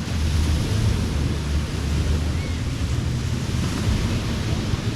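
Ocean surf washing steadily onto a beach, with wind buffeting the microphone as a low rumble.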